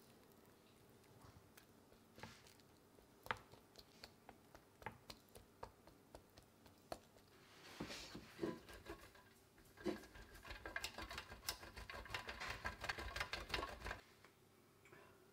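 Cheese being grated on a stainless-steel box grater: a dense run of quick scraping strokes that starts about eight seconds in and stops abruptly about six seconds later. Before it, only scattered light clicks and taps.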